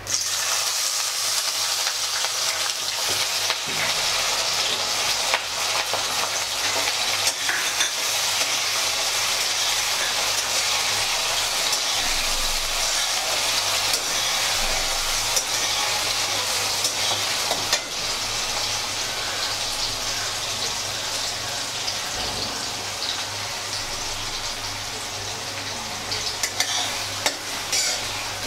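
Chopped onions hitting hot oil in a metal kadhai: a sizzle that starts suddenly and carries on as a steady frying hiss, easing slowly, with the metal ladle now and then scraping and stirring against the pan. The onions are being fried only until soft, still white.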